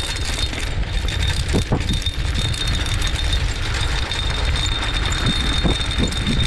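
Wheels of a dog-pulled dryland sled rig rolling fast over a dirt and dry-leaf trail: a steady low rumble with a thin, steady high whine.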